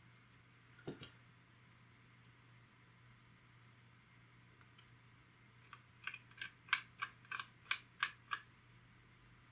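Sharp clicks and scrapes as tiny shards of cracked glass are picked and scraped off an iPod Touch's metal plate: one click about a second in, then a quick run of about ten, roughly four a second, near the end.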